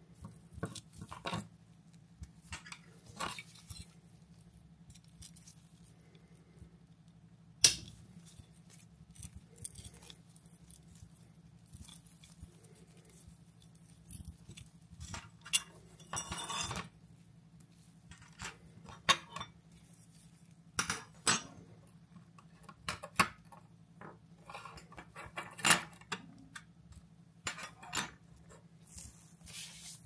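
Scattered clicks, taps and clinks of small plastic and metal parts as a SRAM Eagle GX 12-speed rear derailleur is taken apart by hand and its pieces are set on a workbench. The sharpest click comes a little under eight seconds in, over a faint steady low hum.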